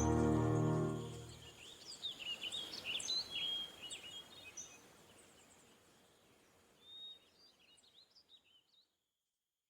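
Gentle guitar music fading out in the first second or so, then birds chirping in quick, sweeping calls that thin out after about five seconds, with a few faint chirps later.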